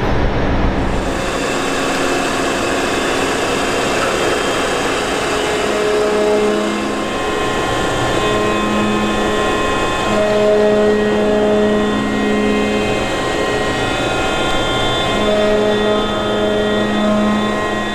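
Ship's engine room machinery running: a loud steady mechanical drone with whining tones that come and go.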